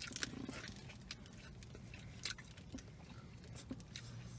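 Faint chewing and mouth sounds from people eating a burrito and tacos, with irregular small clicks scattered through.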